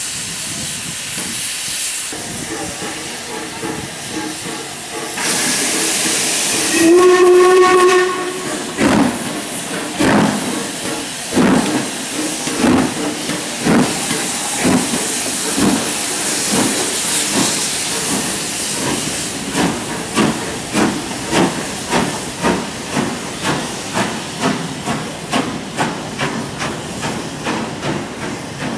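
LMS Black Five 4-6-0 steam locomotive starting away from a stand. Steam hisses, then a louder rush of steam, then a short whistle about seven seconds in. Exhaust beats follow, slow and spaced at first and quickening to about two a second as the train gets moving.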